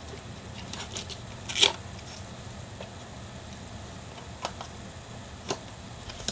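Scattered light clicks and rustles of an iPod box's cardboard and plastic packaging being handled as its contents are taken out, the loudest about a second and a half in.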